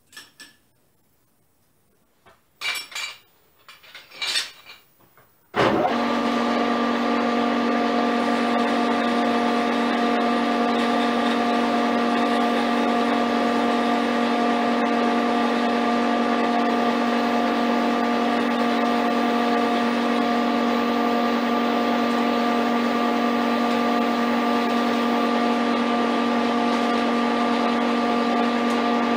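A few metallic knocks at the lathe chuck, then about five seconds in a metal lathe switches on and runs steadily, a machine drone with several held tones from its motor and gearing.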